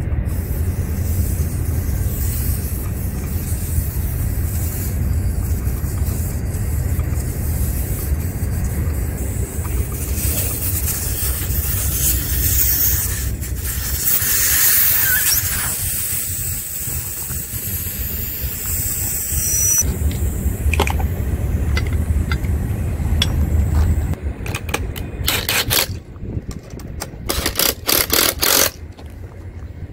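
Air hissing out of a car tyre through its opened valve stem, strongest in the middle and cutting off sharply about two-thirds through as the tyre empties. Near the end a cordless drill driving a bead buster runs in several short bursts.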